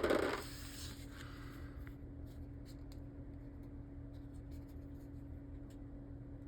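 Faint small handling sounds of sticker backing and small plastic parts being worked by hand: a short rustle at the start, then scattered light ticks and scrapes over a steady low hum.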